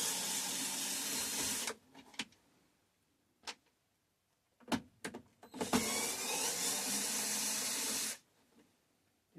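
Small electric screwdriver running twice, about two seconds each, backing screws out of a TV's plastic back cover, with a short rising whine as it spins up. A few short clicks of the bit and screws come between the two runs.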